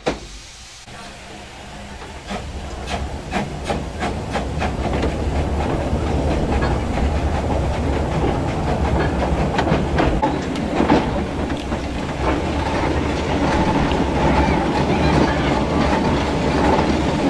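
O&K-built two-foot-gauge steam locomotive heard from its cab as it gets under way, with a sharp knock at the very start. A quick run of sharp clicks grows louder as it picks up speed, then it settles into a steady running clatter on the track.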